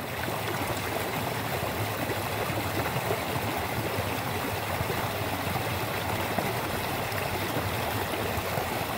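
Small stream running over rocks in little cascades: a steady rush and splash of water.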